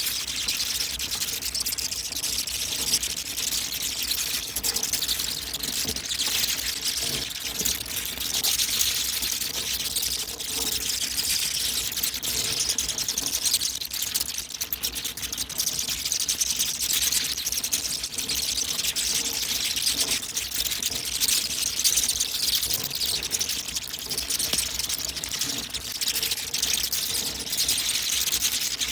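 Hundreds of bats streaming out of their roost together: a dense, steady mass of high chittering and rapid wing flutter.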